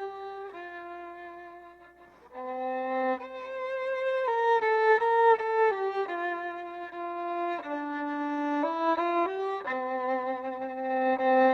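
Slow solo violin melody of held notes. A phrase fades out about two seconds in, and a new phrase begins.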